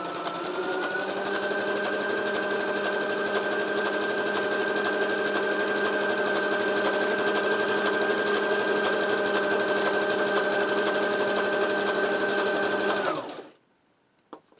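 Brother XL-2250 household sewing machine sewing a test seam at a steady speed, its motor hum rising slightly about a second in and then holding even, with no knocking after the repair. It stops about thirteen seconds in, followed by a few light clicks.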